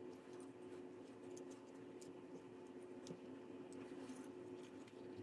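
Faint handling sounds: scattered small clicks and taps as wires and a connector are pressed into the opened plastic shell of a radio controller, over a steady low electrical hum.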